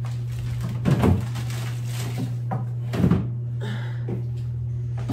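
Groceries being put into an open refrigerator: two thuds about two seconds apart as items are set on its shelves, then a sharp knock at the very end, over a steady low hum.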